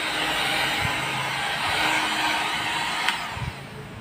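Heat gun blowing a steady rush of hot air, switched off with a click about three seconds in.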